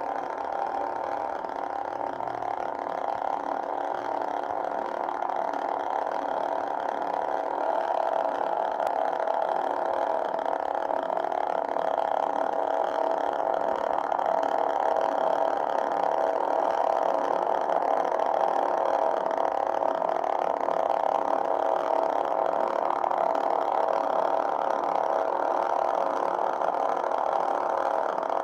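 Steady electronic hum from a custom lightsaber's sound board and speaker, growing slightly louder about a quarter of the way in and then holding even.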